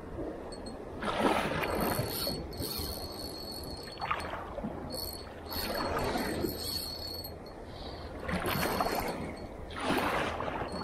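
Small waves washing in against a rock groyne, a swell of water noise rising and falling every two to three seconds.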